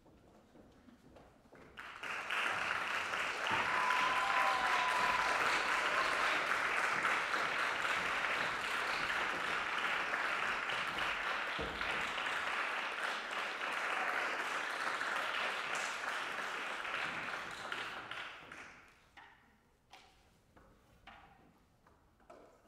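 Audience applauding, starting about two seconds in and dying away near the end, followed by a few scattered light knocks.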